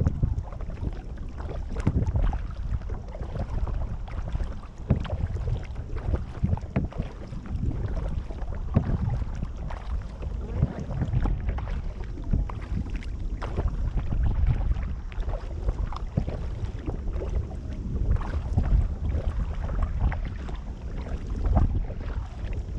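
Kayak paddling on a creek: paddle strokes splashing in the water every second or two, with wind rumbling on the microphone.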